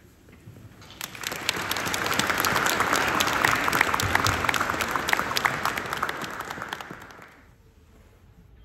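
Audience applauding: the clapping starts about a second in, swells, and dies away about a second before the end.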